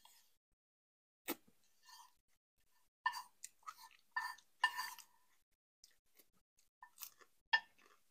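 Close-miked chewing and wet mouth sounds of a person eating stew, coming in short irregular bursts. Two sharp clicks stand out, about a second in and near the end.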